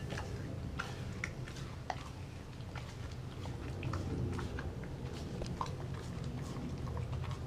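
A German Shepherd mix dog chewing and biting raw dog food, with irregular crunches and clicks.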